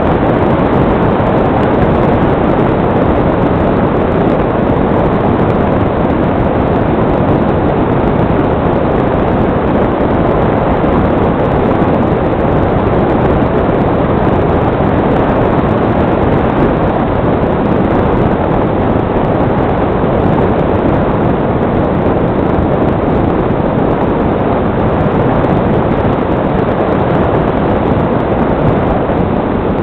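Steady rush of airflow over the onboard camera of a model glider in flight, an even hiss with no distinct motor tone.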